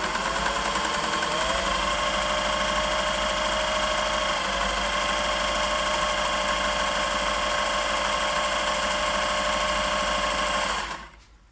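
Singer 401A sewing machine running steadily, stitching a zigzag; the motor speeds up slightly about a second in, then stops about a second before the end.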